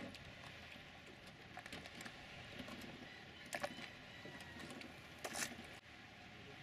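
Faint open-air background noise with a few scattered light clicks and knocks, the clearest about three and a half and five and a half seconds in.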